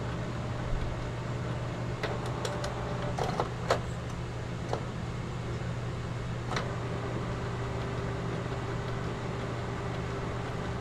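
Canon G1010 ink tank printer running a deep-cleaning cycle to clear clogged print-head nozzles: a steady low hum, with a handful of light clicks about two to four seconds in and one more a little later.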